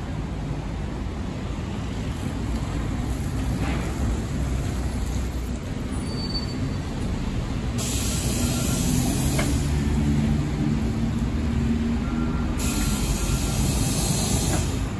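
City bus engine running close by with a steady low rumble, and two long hisses of compressed air from the bus, the first about eight seconds in and the second near the end.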